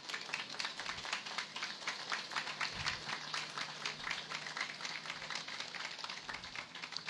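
Audience applauding, with many separate hand claps at an even level throughout.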